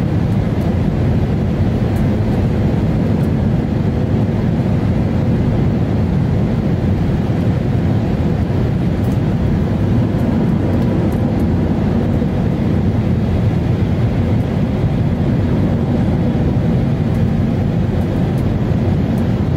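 Jet airliner cabin noise in flight: a steady, loud, low rumble of engines and rushing air heard at a window seat.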